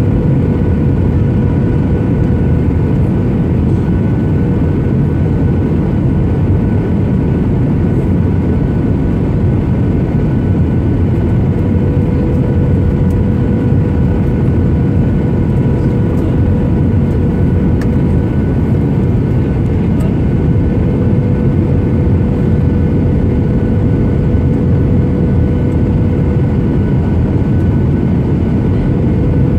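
Cabin noise inside a Boeing 737-800 on its landing approach: a steady rush of airflow and the CFM56-7B turbofan engines, with a faint hum held at one fixed pitch.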